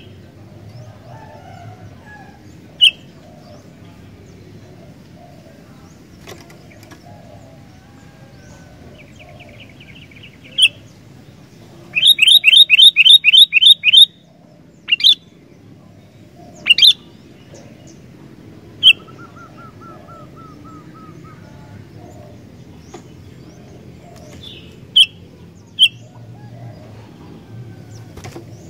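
Sooty-headed bulbul (kutilang) calling: scattered sharp, loud chirps, a fast run of about eight notes near the middle, and a couple of softer, lower trills, over a steady low background murmur.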